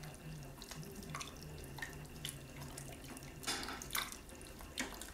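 Spatula stirring a thick stew of beans, sausage and ham in a stainless steel pot: faint wet squelching and sloshing, with a few soft strokes that are louder a little after three and a half seconds, around four seconds and near the end.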